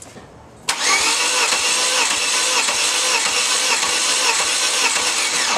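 A 2001 Chevy Cavalier's 2.2-litre engine is cranked over by its starter with the spark plugs removed for a compression test, so it does not fire. The whirring starts about a second in, rises and falls regularly, and cuts off abruptly.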